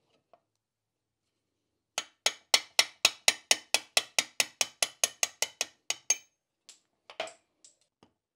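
A fast, even run of light hammer taps, about four a second, knocking a plastic bushing out of a Porsche G50 clutch pedal cluster. A few slower, scattered taps follow near the end.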